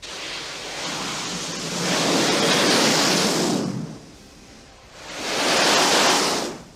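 Jet noise from a Sea Harrier's Rolls-Royce Pegasus engine in two swells: a rush that builds over the first three seconds or so and cuts off abruptly, then a second that rises and fades near the end.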